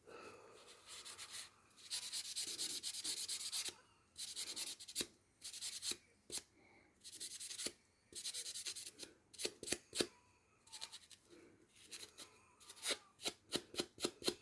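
Hand scrubbing of the metal blades of garden pruners to clean off rust: irregular strokes of dry rubbing, then a run of short sharp clicks and ticks in the second half.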